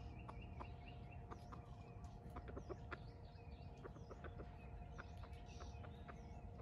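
Wild junglefowl clucking softly, a scattered run of short clucks as they forage.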